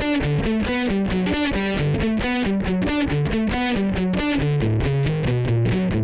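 Squier Stratocaster electric guitar playing a palm-muted single-note riff: fast, evenly picked notes, about six a second, stepping between pitches and moving lower about four and a half seconds in.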